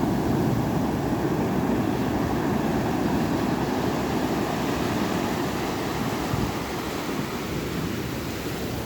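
Ocean surf: a steady, low wash of waves, easing slightly near the end.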